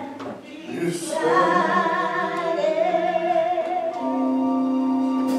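A voice begins singing about a second in with long held notes, and a steady sustained chord joins about four seconds in.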